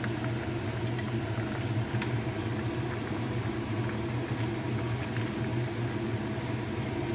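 Chicken pieces deep-frying in a wok of hot oil: a steady bubbling sizzle with scattered small pops, over a steady low hum.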